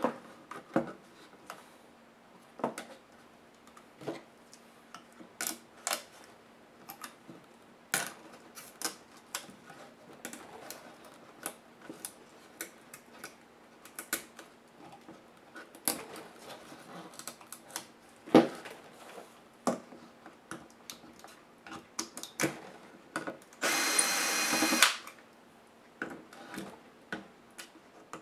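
Scattered sharp clicks and taps as laptop motherboard parts are handled and pried at. Near the end a cordless electric screwdriver runs once for about a second, taking out a screw.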